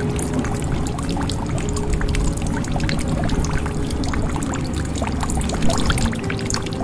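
Water pouring and dripping into a jug: a steady patter of many small drops with short ringing, pitched gurgles from the water in the vessel.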